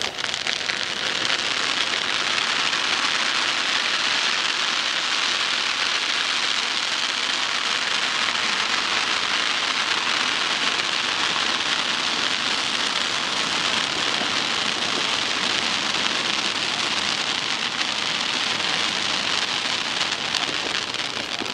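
Two 20-inch Magnum firework fountains spraying sparks with a steady hiss, the opener of a fireworks show. The hiss tails off near the end as the fountains burn out.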